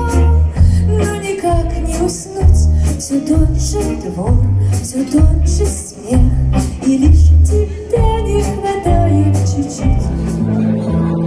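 A band playing a 1960s-style song with singing over a steady bass and drum beat and guitar.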